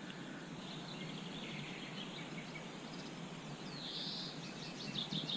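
Small songbirds singing and chirping, with quick high trills, a brighter call about four seconds in and a burst of quick notes near the end, over a steady background hiss.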